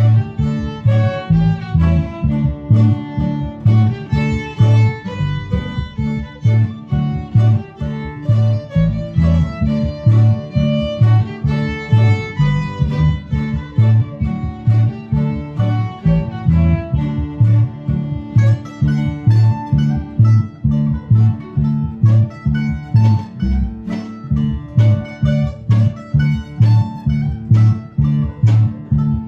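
Bluegrass band playing an instrumental fiddle tune, with fiddle and acoustic guitar over a steady, even beat.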